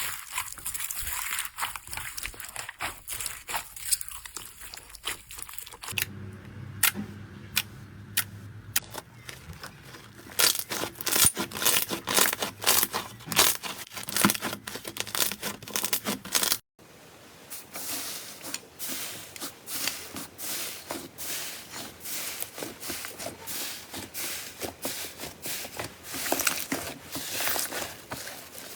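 Slime being pressed, poked and squeezed by hand, giving dense crackling, popping clicks. The sound changes character about six seconds in and again past the middle, with a brief drop-out at the second change.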